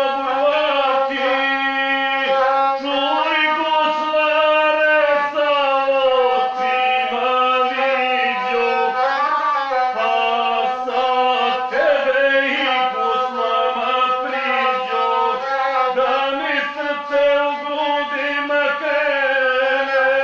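Gusle, the single-string bowed folk fiddle, played continuously with a nasal, sliding melody under a man's chanted epic singing in the guslar style.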